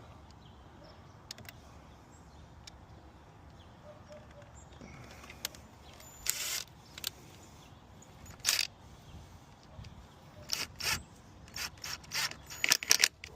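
Hand tools working on the heater valve's fittings in a pickup's engine bay: a few short scrapes and clicks of metal on metal, spaced apart, then a quick run of them near the end.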